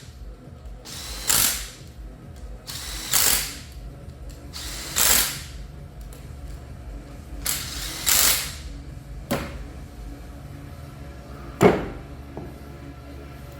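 Ratchet wrench working on the drive unit's bolts: four short ratcheting runs about two seconds apart. Two sharp metallic clicks follow later, the second one the loudest sound.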